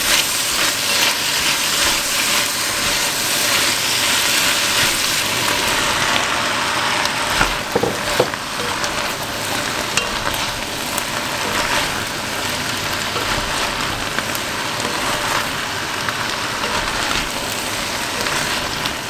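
Chopped vegetables and curry paste sizzling as they fry in a pot, stirred with a wooden spatula. A couple of sharp clicks come about eight seconds in.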